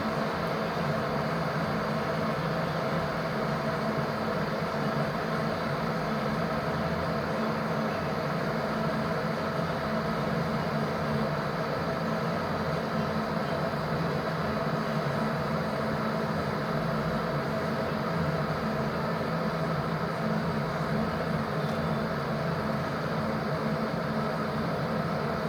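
Electric kettle heating water close to the boil: a steady rushing noise that does not change.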